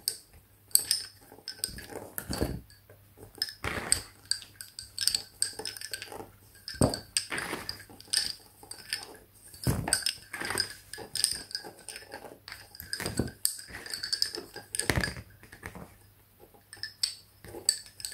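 Lace bobbins clicking and knocking against each other as they are crossed and twisted to work bobbin lace in cloth stitch, in irregular runs of light clicks.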